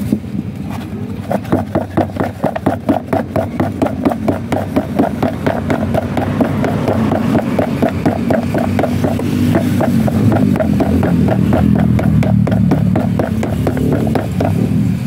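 Sliced crystal guava being shaken in a plastic food tub to coat it with seasoning: a rhythmic rattling shuffle of about three or four shakes a second, starting about a second in and stopping near the end.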